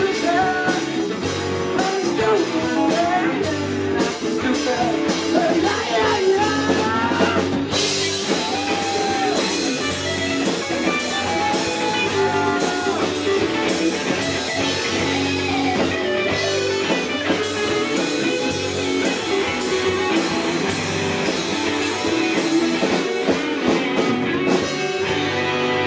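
Live rock band playing a song, with electric guitar, drum kit and singing. The cymbals and high end drop away shortly before the end.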